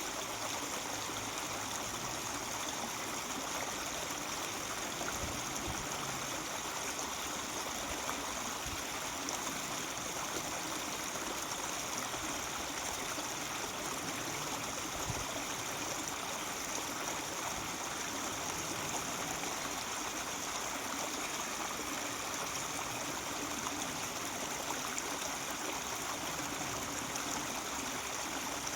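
Mountain stream babbling and trickling over rocks, a steady even rush of water.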